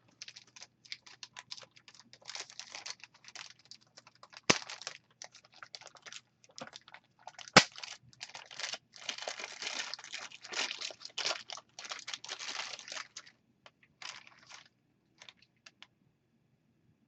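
Packaging crinkling and rustling while a small handheld audio recorder is unpacked and handled, with two sharp clicks, the louder one about seven and a half seconds in. Picked up by a webcam microphone.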